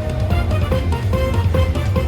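Slot machine bonus-round music playing during free spins: short electronic chime notes over a steady bass.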